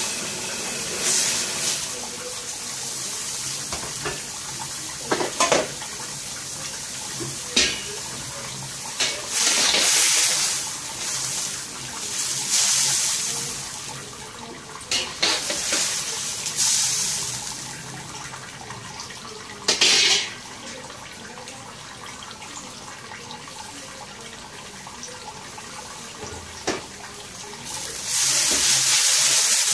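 Water boiling in a wok, splashing and sloshing as a metal ladle stirs instant noodles and bok choy and a plastic strainer basket scoops them out, with sharp clinks now and then. A loud hiss starts near the end.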